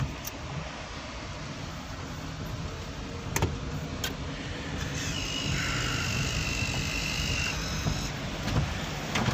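Toyota car rolling slowly over the planks of a wooden suspension bridge: a steady low rumble, with a few sharp knocks from the planks, one near the start and two a little past three seconds in. A high steady whine joins at about five seconds and fades a couple of seconds later.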